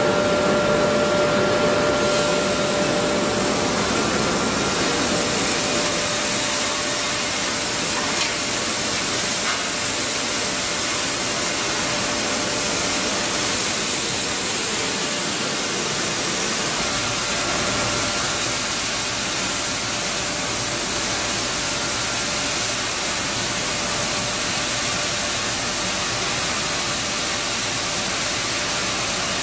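Steady rushing noise of running flour mill machinery, fans and blowers with their motors. A faint steady hum fades out after about four seconds.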